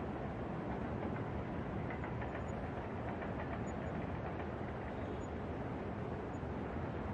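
New York City night ambience: a steady low rumble of traffic and city noise.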